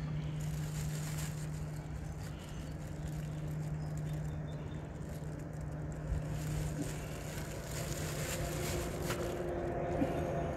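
Motor oil glugging out of a plastic jug into a funnel in the engine's oil filler, topping up an engine that reads about three-quarters of a quart low. A steady low hum runs underneath, with a couple of small knocks from handling the jug.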